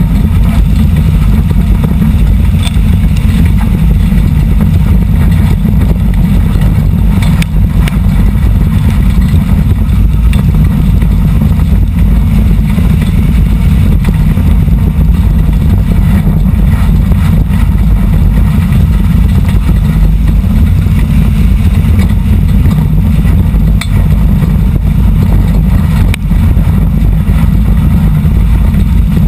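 Four-cylinder dirt-track race car engine running hard, heard loud from inside the cockpit, with a few short knocks from the car on the rough dirt track.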